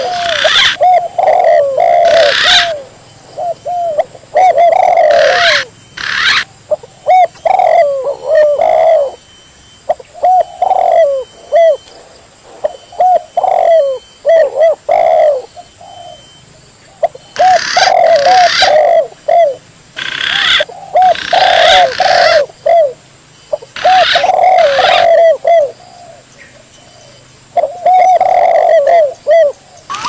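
Spotted doves (tekukur) and green pigeons (punai) calling back and forth on a bird-lure recording. Runs of short low coos come in bursts of a few seconds, with higher sliding notes over them and a few sharp harsh bursts among them.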